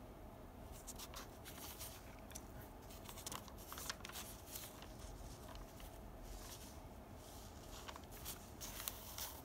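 Faint, scattered rustling and crinkling of thin rice-paper notebook pages being handled and turned.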